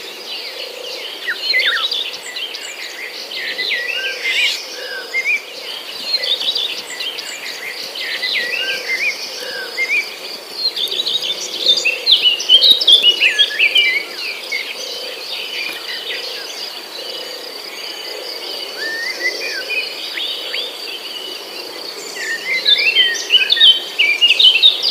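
Several birds chirping and singing at once, with many short, quick whistled notes that come thickest about halfway through and again near the end. Under them runs a steady high insect trill.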